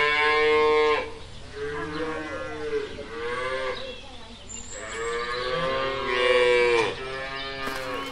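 Cows mooing: several long, drawn-out moos one after another, the loudest in the first second and again from about five to seven seconds in.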